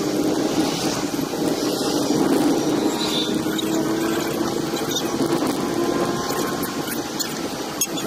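Car engine humming steadily with road noise while driving, heard from inside the cabin; one short click near the end.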